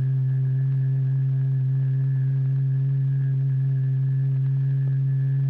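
A steady, loud, low electronic note with fainter overtones above it, unbroken throughout. It is the driving tone of a cymatics experiment, strong enough to throw the vibrating medium into turbulent spikes.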